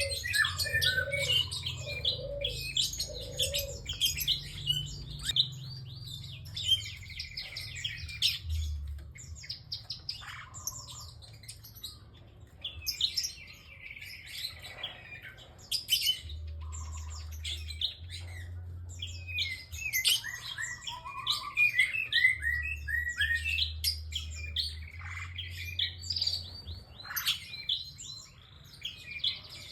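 Prinia singing almost non-stop: rapid high chirps and trilled phrases in bursts with short gaps between them.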